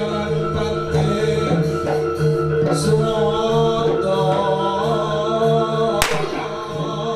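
Live Javanese gamelan music for a jaranan horse-dance performance, with a singer's wavering vocal line over steady held tones. About six seconds in, a single sharp crack, a whip cracked by the dance handler, cuts across the music.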